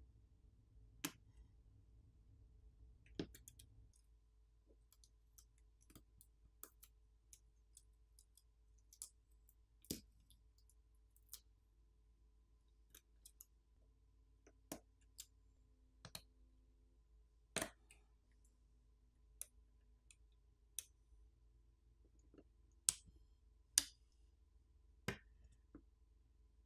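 Faint, irregular small clicks and taps of tools on a smartphone's internals as its battery and flex-cable connectors are unclipped, about twenty over the stretch.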